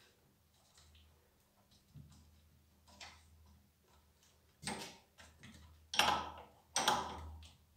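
Metal-on-metal handling noises from a spanner and the pressure washer's pump regulator as its electronic part is worked loose: a few light clicks, then three louder clatters in the last three seconds.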